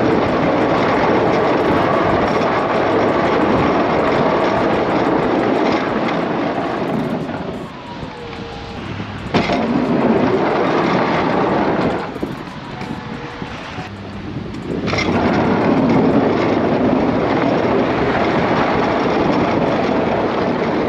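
Pickup truck with a Sno Power front plow driving and pushing heavy, slushy snow, heard from a camera on the hood as a loud rushing noise. The rush eases off twice for a couple of seconds, letting a faint whine through.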